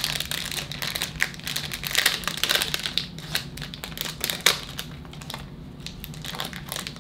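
Plastic wrapper of a baseball card pack crinkling as it is torn open and the cards pulled out, a run of irregular crackles and clicks that thins out after about five seconds.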